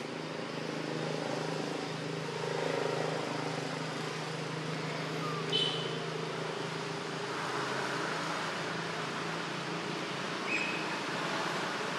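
A motor vehicle engine running steadily with a low hum, with two short high chirps, one about halfway through and one near the end.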